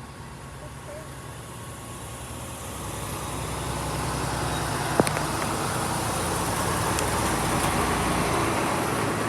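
Dump truck's diesel engine running, growing louder about three seconds in as the truck draws close and staying loud, with a single sharp click about five seconds in.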